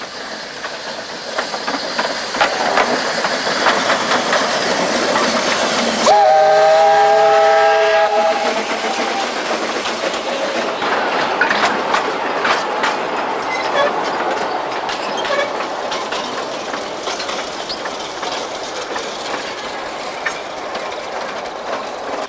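Narrow-gauge steam locomotive approaching and passing with its train. Its running noise and steam hiss build up, the steam whistle blows for about two seconds around six seconds in, then the coaches roll past with wheels clicking over the rail joints, slowly fading.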